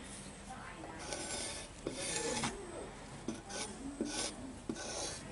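A hand file rasping across a knife blank in a series of uneven back-and-forth strokes, each under a second long.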